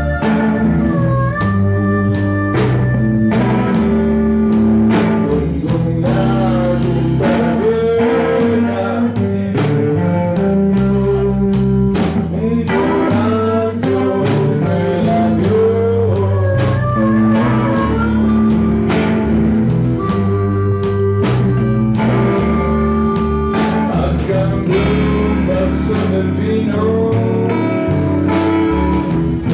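Blues band playing live: guitar, bass line and drum kit keeping a steady beat, with a man singing into the microphone.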